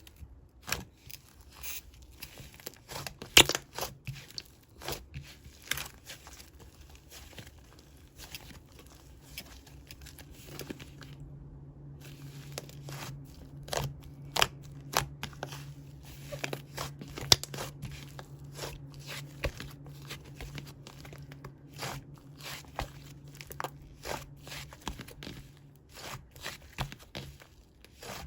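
Fluffy slime being squished, poked and stretched by hand, giving irregular sticky clicks, pops and crackles.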